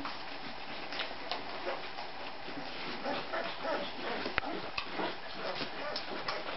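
Young Rhodesian Ridgeback puppies nursing, with small squeaks and whimpers and many little wet suckling ticks over a steady hiss. A single sharp click sounds about four and a half seconds in.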